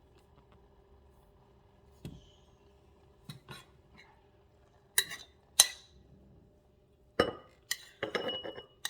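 Kitchen dishes and utensils clinking: a few scattered sharp knocks, two loud ringing clinks about five seconds in, then a busier clatter near the end.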